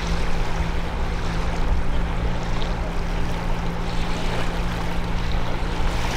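Mercury 40 outboard motor running steadily at low speed, a constant low hum over a rushing of water and wind.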